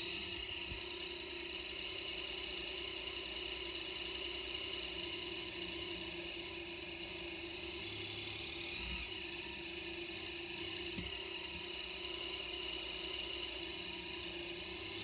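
Motorcycle engine idling steadily while stopped, with cars driving past close in front.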